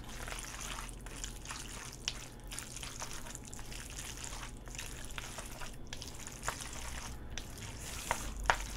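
Chopsticks stirring and lifting jjajangmyeon noodles coated in black bean sauce in a bowl: a wet, sticky squelching, with a few light clicks.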